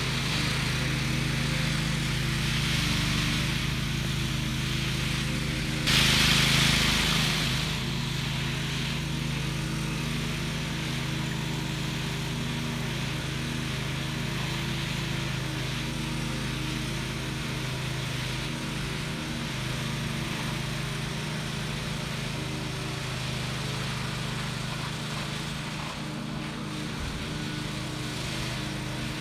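Small gasoline engine of a walk-behind power trowel running steadily as its blades work the fresh concrete slab, with a louder, noisier stretch about six seconds in.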